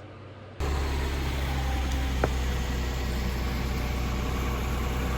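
Truck engine idling steadily, freshly started. It cuts in abruptly about half a second in after faint hiss, with one short click about two seconds in.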